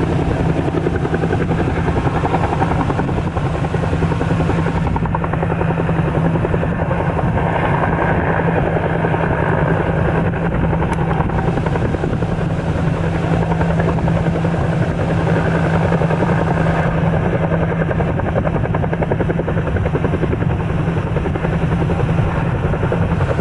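Helicopter running steadily, its rotor chopping fast over a constant low drone.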